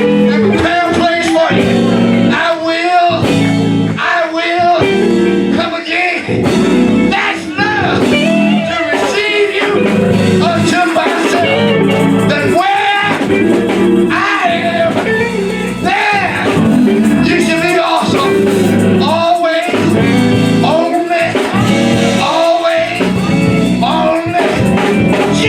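Live church music: a singer with guitar and band accompaniment, a steady beat running under the voice.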